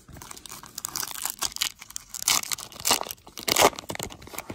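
Plastic foil wrapper of a Topps Fire baseball card pack being torn open and crinkled: a run of irregular crackling tears, loudest a little past two seconds in and again about three and a half seconds in.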